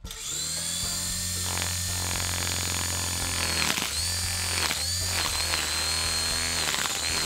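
Small quadcopter drone's electric motors and propellers whining steadily. The pitch dips briefly and recovers a few times midway.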